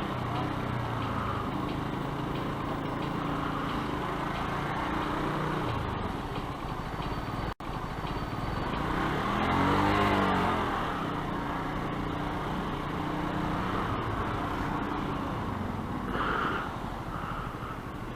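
Yamaha YZF-R125's 125cc single-cylinder engine running on the road under heavy wind buffeting on the helmet microphone. Its note rises and then falls in pitch once about ten seconds in, the loudest moment. The sound cuts out for an instant a little before that.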